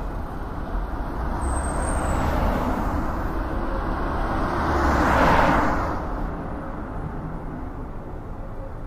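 Traffic noise: a vehicle passes, swelling to its loudest about five seconds in and then fading, over a steady low rumble. A short high squeal comes about two seconds in.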